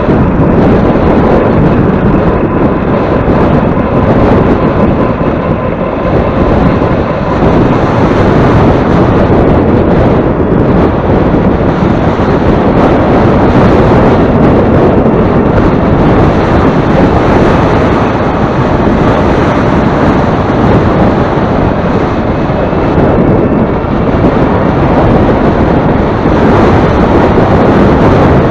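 Strong headwind buffeting the microphone: a loud, steady, rumbling rush of wind noise with no let-up, and a faint high whine in the first seven seconds or so.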